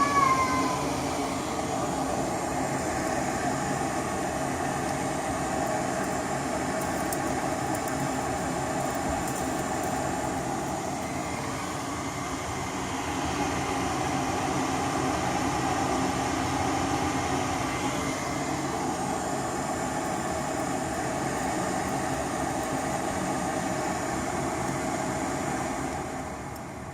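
Goodman gas furnace's draft inducer motor running with a steady whir, the fan that pulls the pressure switch closed; it drops away near the end.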